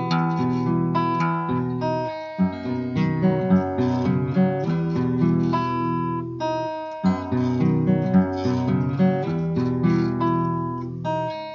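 Instrumental acoustic guitar music, with plucked notes over chords that change every few seconds.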